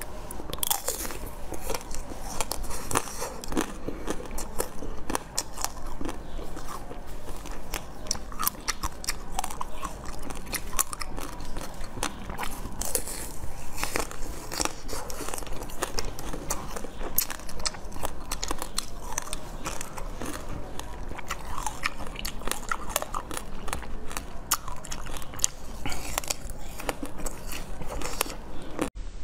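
A person biting into and chewing green cube-shaped food with a crisp crunch: a dense, continuous run of crackles and crunches.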